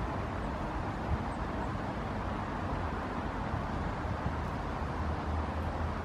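Steady low rumble of distant road traffic, an even background hum with no distinct events.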